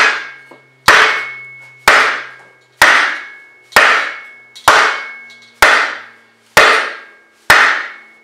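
Steady hammer blows, about one a second, nine in all, striking a wooden block held on top of a cylinder sleeve to drive the sleeve into a Ford 8N tractor engine block. Each blow is a sharp knock with a metallic ring that dies away before the next.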